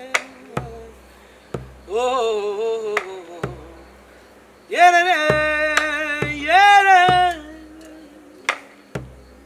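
A man singing an Argentine folk song in two long phrases with vibrato, to a bombo legüero drum beaten with sticks: deep thumps with sharp stick clicks about once or twice a second. An acoustic guitar holds a low note beneath.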